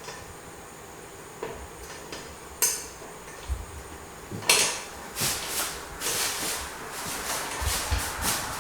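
Phillips screwdriver and screw clinking and scraping against a ceiling fan's shield as a screw is started by hand: a sharp clink a couple of seconds in, a louder one about halfway, then a run of small clicks and scrapes.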